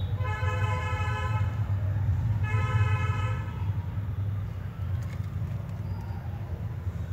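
A horn sounds twice, a longer blast and then a shorter one about a second later, over a steady low rumble.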